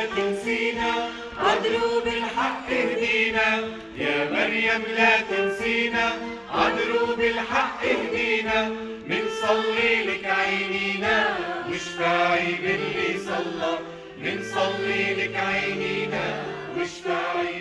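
Mixed choir singing a hymn to the Virgin Mary in long held notes, phrase after phrase.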